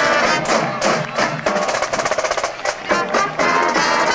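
Youth marching band playing: brass instruments sounding together over a drum line, with sharp, frequent drum and percussion strikes.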